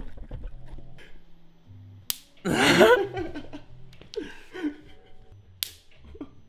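Electric fly-swatter racket discharging: sharp spark snaps from its high-voltage mesh, twice, about two seconds in and again near the end. A person yells loudly right after the first snap.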